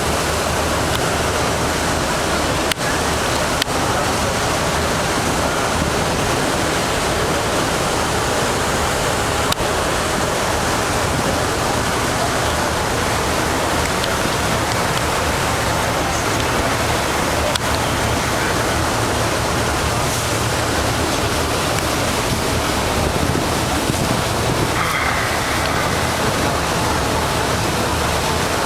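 Steady rushing of water and wind aboard a moving passenger ferry, over the low, even hum of the ferry's engine.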